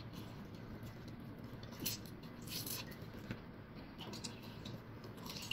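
An orange half being squeezed by hand over a mug: a few faint, short squishing and crackling sounds of the peel and pulp.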